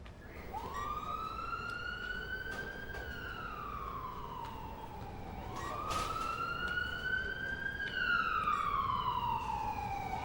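Ambulance siren wailing, its pitch rising slowly and falling again in two long cycles of about five seconds each. A short sharp click sounds about six seconds in.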